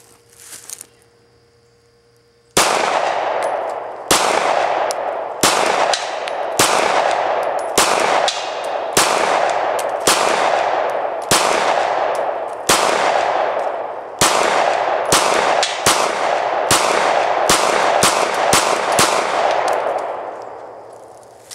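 Glock 22 pistol with a 9mm conversion barrel firing 9mm rounds in a steady string, roughly one shot a second, each with a ringing echo. The shooting starts about two and a half seconds in and stops shortly before the end.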